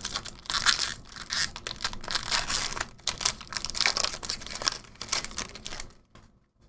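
Foil wrapper of a Magic: The Gathering booster pack crinkling and tearing as it is pulled open by hand, an irregular crackling rustle that stops about six seconds in.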